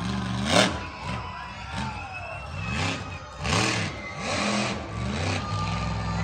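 Monster truck engine revving up and down in quick blips, about one a second, with a few short bursts of noise over it.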